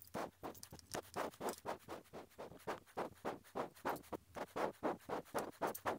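Nylon zip tie being pulled tight through its ratcheting lock, a fast, even series of short rasps, about five a second, as it straps a linear bearing to the Y-carriage.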